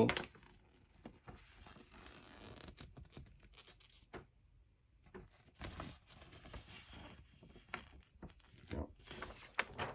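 Large folded paper instruction sheet rustling and crinkling as it is held and shifted by hand, in irregular spells with a short pause about four seconds in.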